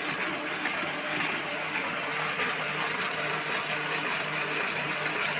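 Paper printing press running with a steady mechanical clatter.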